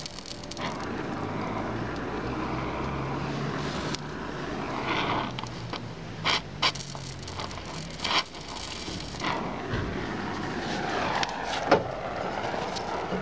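Oxyacetylene welding torch flame hissing steadily against the steel of a car's rocker panel, broken by a few sharp pops. A low engine-like hum runs underneath for the first two-thirds, then fades.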